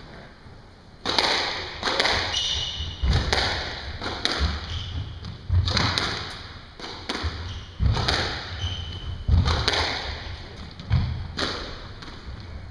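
Squash rally, starting with the serve about a second in: the ball cracks off the rackets and the court walls about once every second or so, each hit ringing briefly.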